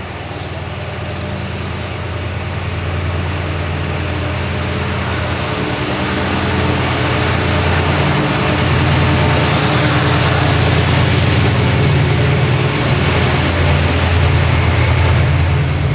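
Diesel-hauled passenger train approaching and passing close by: a steady low engine drone with the rumble of wheels on rails, growing louder over the first half and then holding as the coaches roll past.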